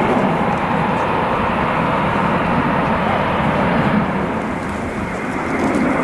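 Boeing 707's four Pratt & Whitney JT3D turbofan engines running as the jet flies past overhead: a steady, loud jet roar that eases slightly about four seconds in.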